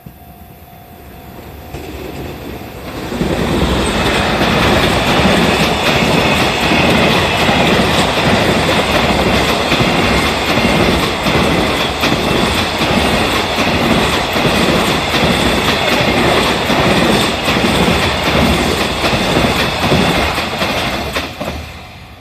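Freight train hauled by an EF210 electric locomotive passing a level crossing. First the crossing's warning bell is ringing, then about three seconds in the train arrives and the wagon wheels clatter rhythmically over the rail joints. The train passes loudly for about eighteen seconds and fades near the end.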